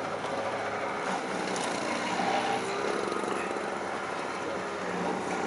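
An engine running steadily, a continuous mechanical drone without change in pitch.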